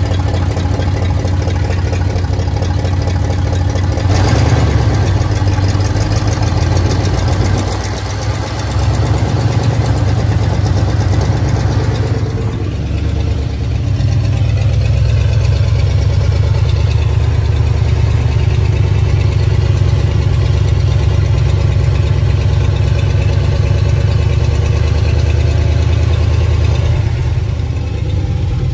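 Rebuilt Ford 360 FE V8 in a Dentside pickup, running continuously. The engine gets louder and fuller from about four seconds in, dips briefly near eight seconds, then settles into a steadier, duller note from about twelve seconds on.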